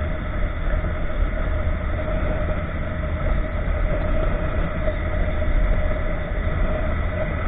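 Honda motorcycle cruising at a steady road speed: a steady engine drone under rushing wind noise on the microphone.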